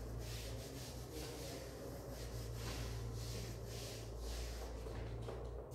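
Chalkboard being wiped with a duster in repeated short strokes, a soft rubbing scrape a few times a second, over a steady low hum.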